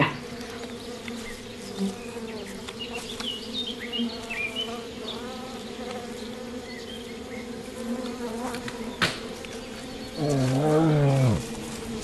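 A swarm of furious honeybees buzzing in a steady drone as a brown bear tears into their log hive, with a few sharp cracks of splintering wood. About ten seconds in, a low groan from the bear lasts a little over a second.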